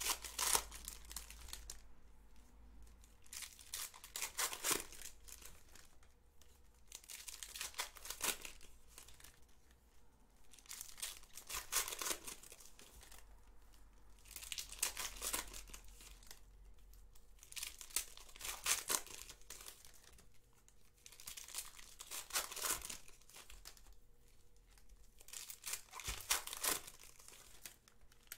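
Foil wrappers of 2018 Panini Certified football card packs being torn open and crinkled, one pack after another, in short bursts about every three seconds.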